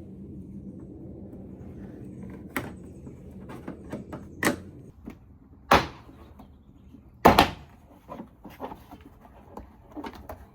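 Plastic pry bar working at a 4Runner's plastic grille and bumper trim, giving about four sharp plastic clacks and knocks spread out, the loudest two in the second half.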